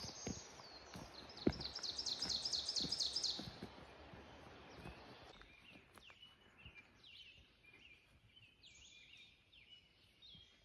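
Small songbirds singing in the woods: a fast run of repeated high notes about two seconds in, then shorter, quieter song phrases later on. Soft footsteps on leaf litter in the first few seconds.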